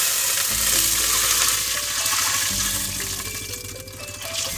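Water poured into an aluminium pot of hot oil and fried garlic, sizzling loudly and slowly dying down as the water cools the oil. Background music with steady notes plays underneath.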